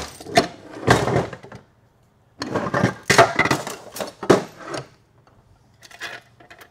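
Hard metal-on-metal clanking as a stripped TH350 transmission's aluminium case is handled on a metal workbench and its internal drum and sprag assembly is pulled out. There are several sharp knocks at the start, a longer run of clattering in the middle and a few light clicks near the end.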